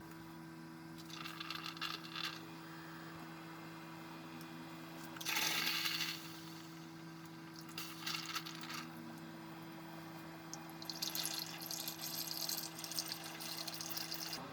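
TasteStyle single-serve coffee maker brewing in over-ice mode: a steady low pump hum, with spurts of hissing and coffee splashing onto ice in the cup, the loudest about five seconds in and a longer run of splashing from about eleven seconds.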